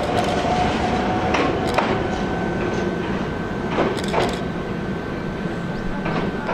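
An Ichibata Electric Railway 2100-series electric train with a steady rumble. A whine stops about two seconds in, then a steady higher tone holds, with several short knocks and clunks.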